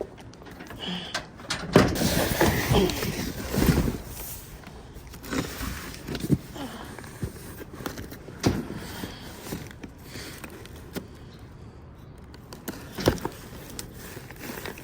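A box being dragged out of a dumpster and its contents rummaged through: a burst of scraping and rustling about two seconds in, then scattered knocks and clicks, with a sharp knock near the end.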